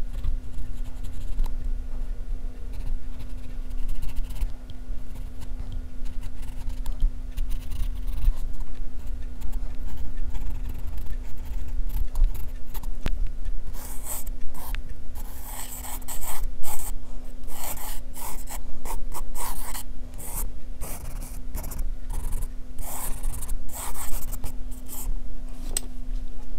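HB graphite pencil scratching on drawing paper: faint short shading strokes at first, then from about halfway, louder quick repeated long strokes as grass lines are sketched. A steady low hum runs underneath.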